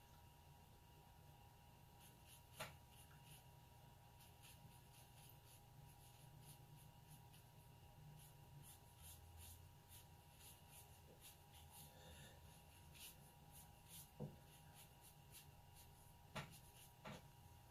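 Faint, quick scratchy strokes of a watercolor brush dragged over Arches 140 lb watercolor paper, short strokes laying in fur, with a few sharper ticks among them.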